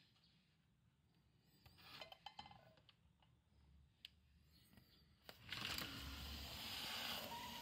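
A glass sliding window/door in an aluminium frame being opened by hand: a click a little over five seconds in, after which the steady noise of the outdoors comes in. Before that, only a few faint clicks of handling.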